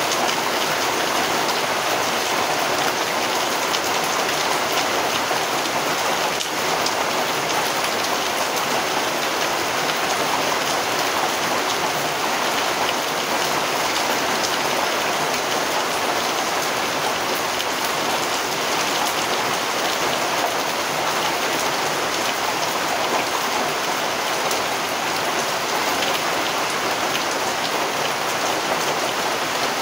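Steady rain falling, a dense patter of many small drops that keeps an even level throughout.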